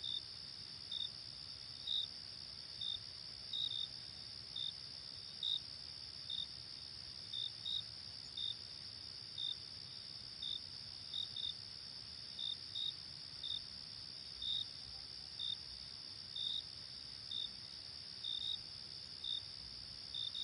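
Night-time crickets: a steady high trill, with short, louder chirps over it, about one or two a second at an uneven pace.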